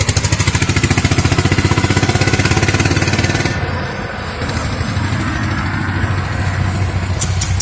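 A motor vehicle's engine running close by with fast, even exhaust pulsing. It is strongest for the first three and a half seconds, then settles to a steadier, slightly quieter run. A few sharp clicks come near the end.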